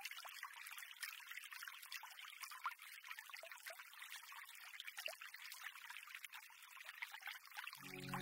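Faint, thin patter and crackle like light rain falling, made of many tiny clicks with no low end. Background music fades back in near the end.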